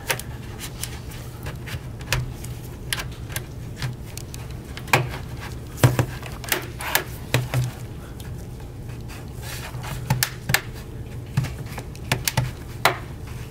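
A plastic pry pick working along the seam of a laptop's plastic bottom panel, with the panel's clips snapping loose in a run of irregular sharp clicks and snaps. A steady low hum sits underneath.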